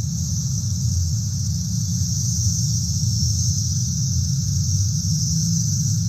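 Chorus of Brood X periodical cicadas (Magicicada): a steady, continuous high buzz with a low rumble underneath.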